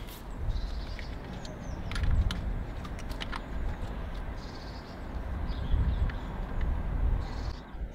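A few light clicks and taps as a small screw is threaded by hand into the aluminium housing of an engine's camshaft position sensor, over a low, uneven rumble.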